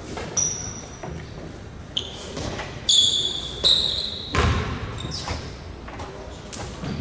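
Basketball game sounds in a gym: several short, high-pitched sneaker squeaks on the court floor, loudest about three to four seconds in, with a ball bouncing and echoing in the hall.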